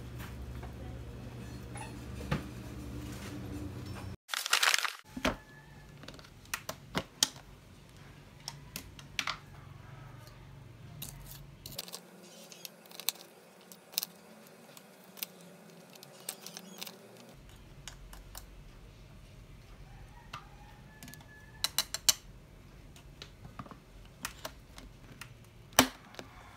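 A steady low hum, then from about four seconds in a brief loud clatter followed by scattered sharp clicks and light knocks. These come from frozen blueberries and a wooden spoon against a plastic tub and a ceramic ramekin of yogurt.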